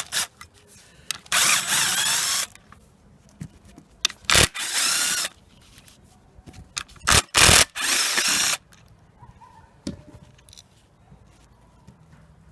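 Power drill-driver spinning in several bursts of about a second each, its motor pitch rising and falling, undoing the clutch fasteners on a Honda CB200 engine, which is held still by a jammed gear.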